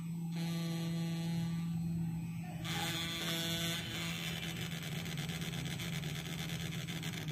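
Brushless spindle motor from a computer CD drive, driven by an ESC, starting suddenly and running with a steady hum and a faint high whine. A short rise in hiss comes about three seconds in.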